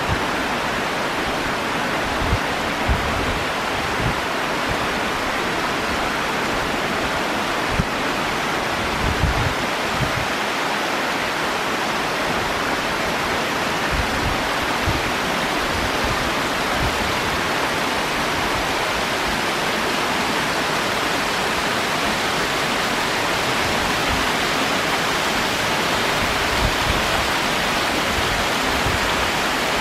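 Small waterfall pouring over rocks into a stream: a steady rush of falling, splashing water.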